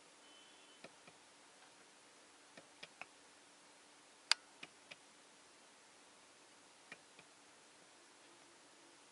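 Scattered short clicks, about ten at uneven spacing and the loudest a little over four seconds in, over a faint hiss: the display switches of a Toyota Innova Crysta being pressed to step through the multi-information display's pages.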